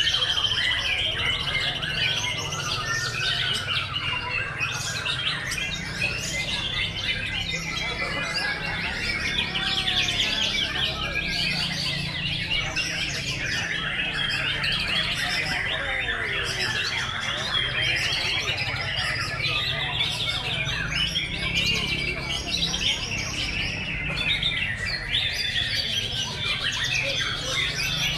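Many caged white-rumped shamas singing at once: a dense, unbroken chorus of overlapping whistles and rapid trills, over a steady low hum.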